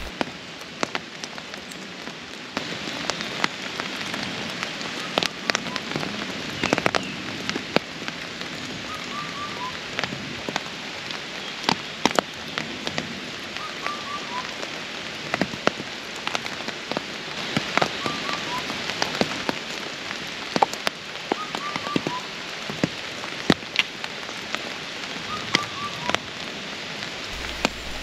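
Steady rain in a forest, with large drops landing on leaves as frequent sharp taps. A bird repeats a short call of three quick notes every few seconds.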